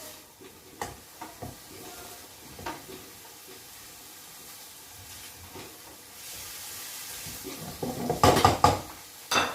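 Metal utensil and cookware clattering in a cooking pot: a few light clinks, then a loud run of clattering knocks near the end, over a faint sizzle of food frying.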